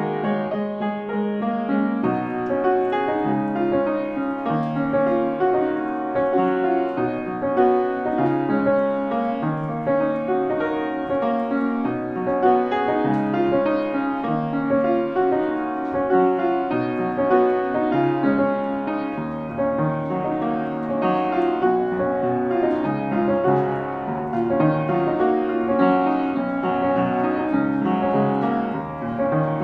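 Piano music: a steady flow of notes, with no singing.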